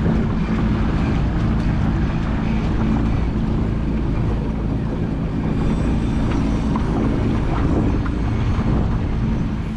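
Motorboat engine running steadily while underway, with wind blowing across the microphone.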